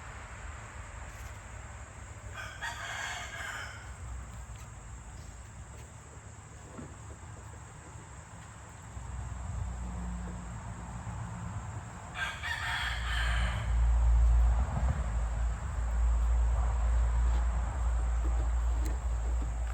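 A rooster crows twice, about ten seconds apart, each crow lasting a little over a second. About two-thirds of the way through, a low rumble comes in and becomes the loudest sound.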